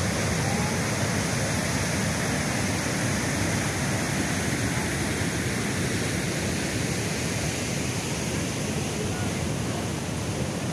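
Steady rushing background noise, even throughout with no distinct events.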